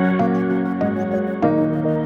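Soft new-age background music: gentle keyboard notes and chords changing about every half second.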